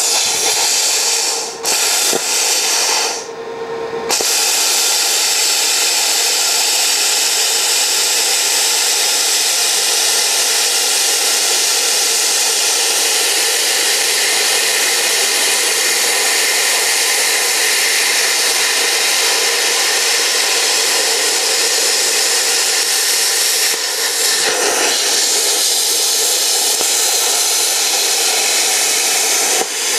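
Plasma cutter (Longevity Innovator 255i) cutting through a steel wheel rim: a loud, steady hiss with a buzzing edge. The arc breaks off twice in the first few seconds, then runs unbroken.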